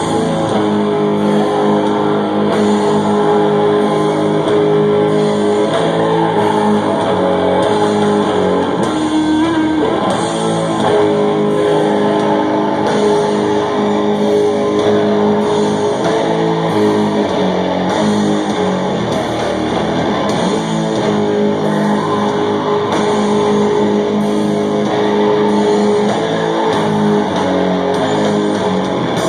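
Doom metal band playing: slow, heavy guitar and bass with long held chords that change every few seconds.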